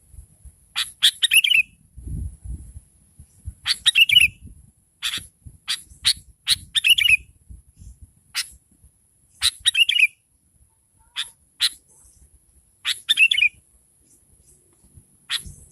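Sooty-headed bulbul (kutilang) calling: short clusters of sharp, clipped notes repeated every second or few, several of them ending in a quick falling warble.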